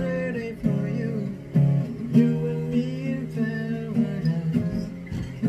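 Acoustic guitar strummed in chords with a man singing along.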